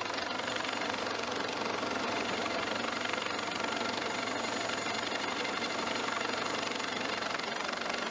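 Harbin Z-9 naval helicopter hovering: the steady noise of its rotor and twin turboshaft engines, with a thin high whine running through it.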